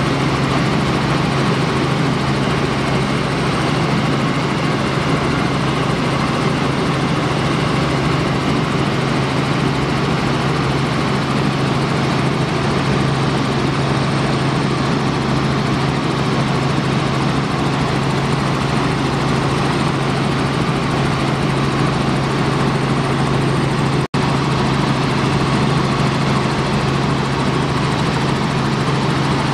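Helicopter engine and rotor drone heard from inside the cabin: a loud, steady, unchanging drone with a strong low hum. It cuts out for an instant about three-quarters of the way through.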